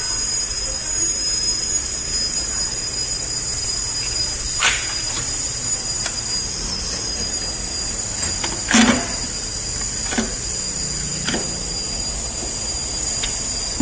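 Steady high-pitched electrical whine, several tones held together, with a handful of sharp clicks and knocks, the loudest about nine seconds in.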